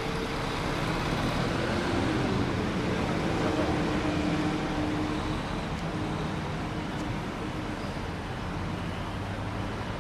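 Articulated city bus running close by, among steady road-traffic noise. A low motor hum swells a little a few seconds in.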